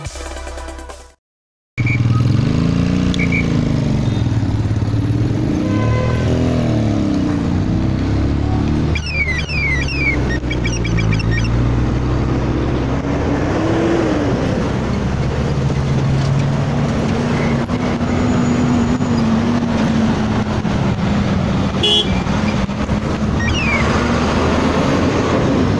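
Road traffic heard up close from a bicycle: the engines of nearby cars running and revving, over a steady rush of road noise.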